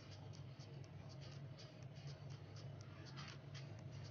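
Hot cooking oil crackling faintly in a frying pan, with small irregular pops, over a steady low hum.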